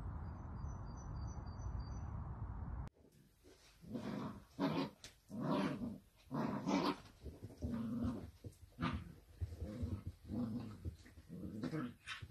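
Two dachshund puppies growling in short, repeated bursts as they play tug-of-war and play-fight: playful growls, not aggression. Before that, for about the first three seconds, a steady low rumble is heard, like wind on the microphone.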